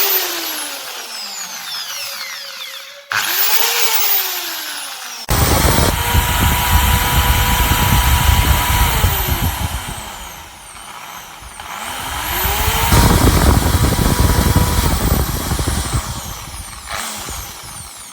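Electric impact drill, the Einhell TH-ID 1000 E, run in several trigger pulls. First come short spin-ups and run-downs. About five seconds in it starts loud and runs at a steady speed, then winds down, spins up again and runs before winding down near the end.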